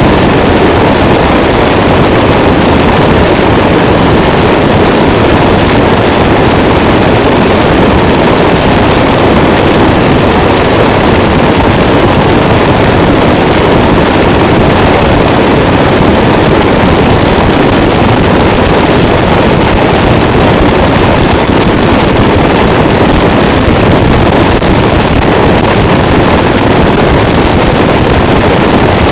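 Harsh noise wall: a loud, unchanging wall of dense distorted static, heaviest in the low and middle range, with no breaks or separate strikes.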